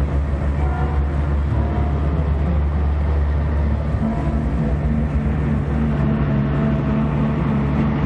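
Military cargo truck engines running steadily as a convoy drives, a continuous deep drone with a steady hum.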